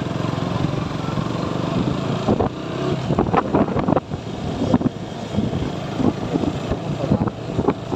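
KTM motorcycle's single-cylinder engine accelerating and shifting up through the gears. From about two and a half seconds in, wind buffets the microphone in rough gusts over the engine.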